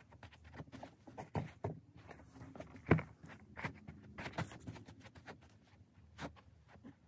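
Foam Crocs clogs scuffing and tapping on a carpeted floor as feet step about and slip in and out of them, a series of soft irregular clicks and knocks with one louder thump about three seconds in.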